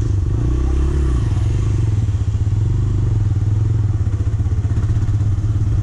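TVS Raider 125's single-cylinder engine running steadily as the motorcycle rides along, an even, rapid exhaust pulse heard from the rider's position.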